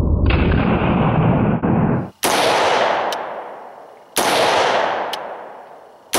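AR-15 rifle with a Battlecomp muzzle brake/compensator firing three shots about two seconds apart, the last at the very end. Each is a sharp crack with a long fading tail and a faint click about a second after it. The shots come after a steady low rumble in the first two seconds.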